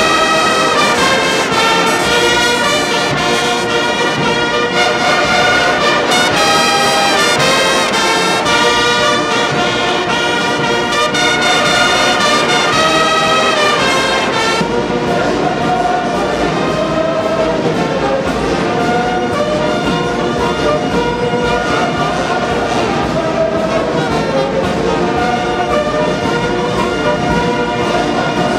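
A large brass band of trumpets, trombones and other brass playing held chords together. The sound turns duller about halfway through.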